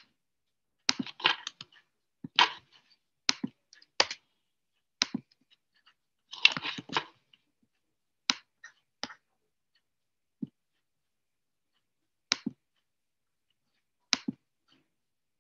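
Scattered sharp clicks and taps, about a dozen, some in short quick clusters and the rest single, with dead silence between them, coming through an online video call.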